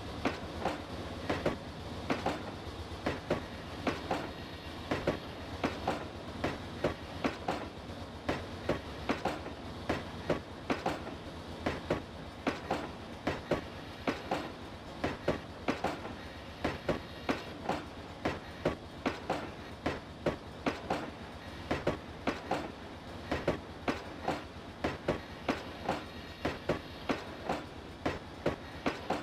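Iron-ore freight train wagons rolling past, their steel wheels clacking over the rail joints a few times a second above a steady low rumble.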